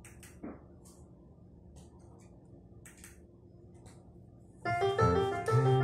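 Quiet room with a few faint clicks, then recorded piano music starts about three-quarters of the way through, a low held note under a melody of steady notes.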